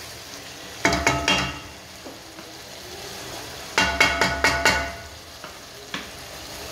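Wooden spoon stirring minced meat and onion frying in a pot, clacking against the pot's sides in two quick runs with a ringing tone, about a second in and again about four seconds in, with a single knock near the end. A low steady sizzle of the frying mince runs underneath.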